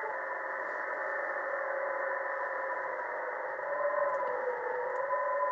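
RTTY (radioteletype) signal on shortwave, heard through the ATS25 X1 receiver's speaker in SSB mode: two steady data tones over band hiss. The hiss has a dull, narrow sound, cut off sharply at the top by the receiver's filter. About three and a half seconds in, the tones slide down and back up in pitch as the receiver is fine-tuned.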